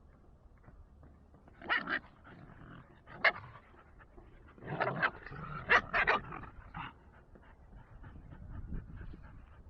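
Dogs play-fighting: a run of short, sharp barks, about eight in small clusters, with quieter scuffling and breathing between them.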